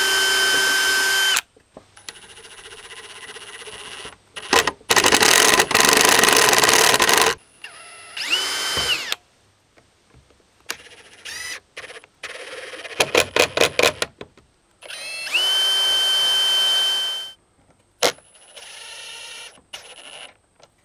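A cordless drill and a cordless impact driver running in several separate bursts while drilling a pilot hole and driving screws through plywood into a chainsaw's plastic handle. It opens with a steady motor whine. Later runs speed up and slow down, and some carry the quick rattling clicks of the impact driver hammering.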